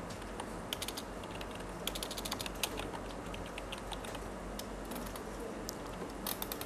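Computer keyboard being typed on: runs of quick key clicks with short pauses between words.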